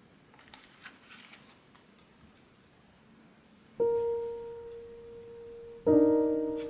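Faint quiet room with a few light clicks, then solo piano music starts about four seconds in: one held note that slowly fades, and a chord near the end.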